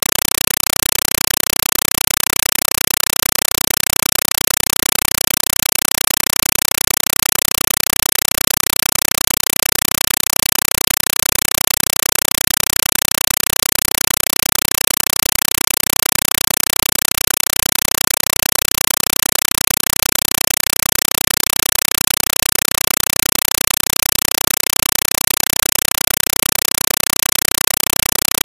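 Steady hiss with no other sound in it, even and unchanging and strongest in the high end: the noise floor of a silent 8mm home-movie transfer.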